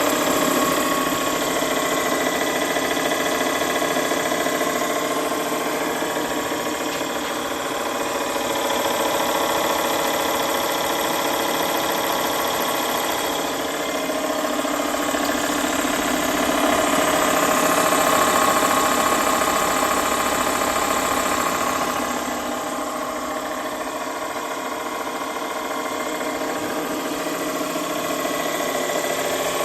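Showa Kikai Kogyo SK-3A abrasive wheel cut-off machine running steadily, its motor and spinning grinding wheel giving a loud, even hum with a high ringing whine.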